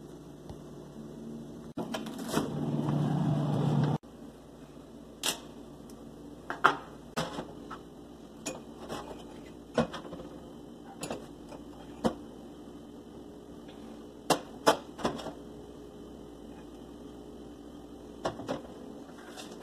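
Metal spoon clinking and tapping against a ceramic mug, a dozen or so sharp knocks spread out, with the spoon set down on a steel drainboard. Near the start a louder rushing noise lasts about two seconds and cuts off suddenly.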